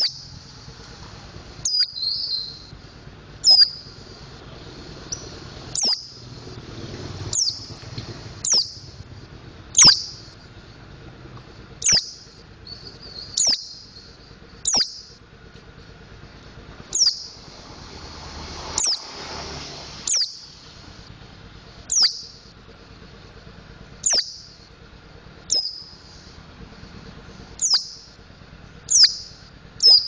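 Mountain white-eye (pleci montanus) calling: short, sharp, high whistled notes that slur downward, repeated about every one and a half seconds, with soft twittering between some of them.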